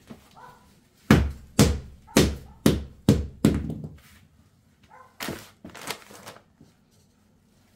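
Rubber mallet knocking a new wooden floor plank down into the adhesive to seat it: six quick thuds about half a second apart, then two lighter blows a couple of seconds later.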